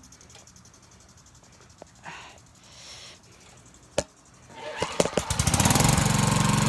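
Push mower's small engine catching on a pull-start: a sharp knock about four seconds in, a few uneven firings, then the engine running steadily.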